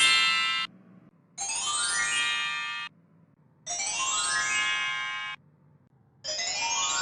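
Magic wand sound effect: a quick upward sweep of chime-like tones that settles into a shimmering ring, repeated about every two and a half seconds. Each repeat is longer and lower in pitch than the last, as the effect is slowed down.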